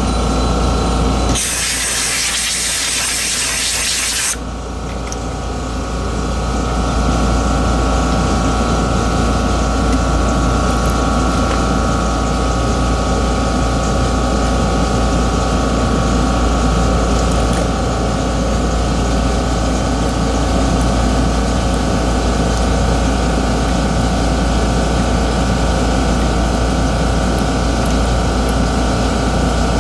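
A motor-driven air blower running with a steady drone, with one loud hissing blast of air lasting about three seconds starting about a second and a half in: dust being blown out of the opened mouse.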